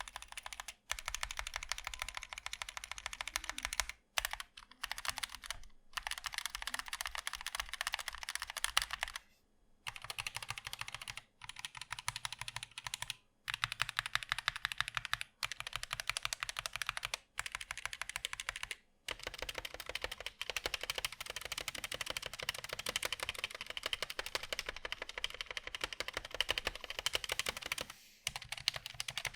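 Fast continuous typing on a Zet Blade Optical mechanical keyboard with linear Kailh Optical Black switches and ABS double-shot keycaps: a dense run of keystroke clacks, broken by several short pauses.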